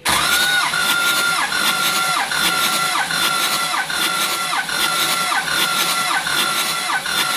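Starter motor cranking a newly rebuilt, never-fired Ford 6.0L Power Stroke V8 diesel for a compression test, without it firing. A steady high whine dips in an even rhythm about every three-quarters of a second as the cylinders come up on compression.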